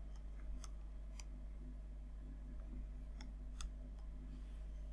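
A few faint, short clicks over a low steady hum.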